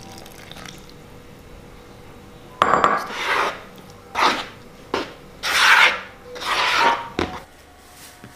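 A silicone spatula scraping around a plastic mixing bowl, stirring flour, eggs and water together for noodle dough. After a quiet start, about five scraping strokes come in the second half, with a couple of sharp clicks among them.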